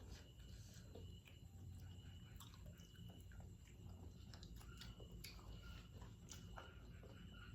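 Faint chewing and mouth sounds of someone eating, with scattered soft clicks over a steady low hum.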